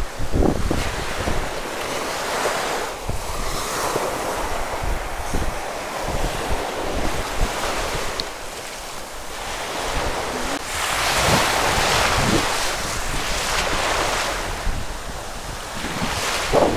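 Small waves breaking and washing up over a sandy shore, the surf rising and easing as each wave runs in, with wind buffeting the microphone.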